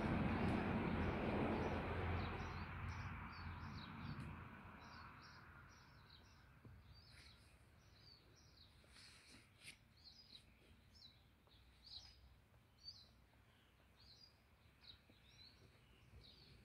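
A car passing on the road, its tyre and engine noise fading away over the first five seconds. After that, a small bird chirps over and over, short high calls about once a second.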